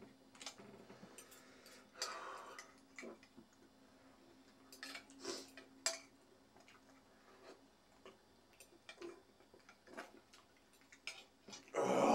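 Scattered light clicks and taps of a utensil against a bowl while eating the last of a bowl of noodles, with small eating noises and a louder breathy burst near the end.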